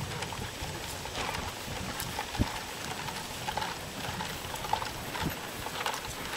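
Footsteps of a column of soldiers marching past on grass: a run of irregular soft boot knocks and scuffs.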